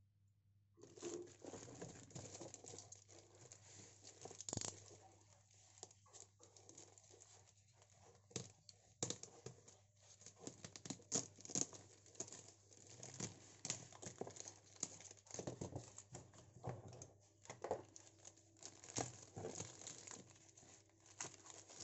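Plastic courier mailer bag being slit open with a snap-off utility knife and torn and peeled back by hand: irregular crinkling and tearing of thin plastic with small clicks and scrapes.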